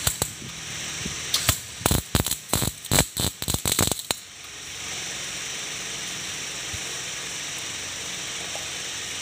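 MIG welding arc crackling and spitting in several short, irregular bursts as a metal piece is tack-welded onto a steel motorcycle handlebar. The welding stops about four seconds in, leaving a steady hiss.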